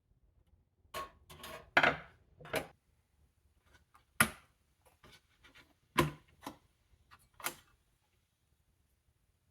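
Hands working on a small desktop computer's case and parts: a quick run of clicks, knocks and short scrapes, then four single sharp clicks a second or two apart.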